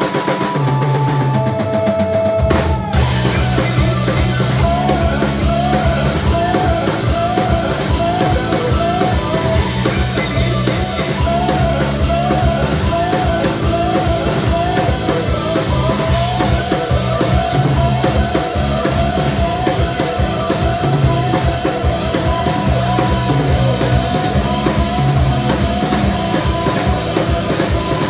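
Rock band playing live on drum kit and keyboards. The bass and drums drop out for the first couple of seconds, and the full band comes back in with a steady beat under a short, repeating keyboard figure.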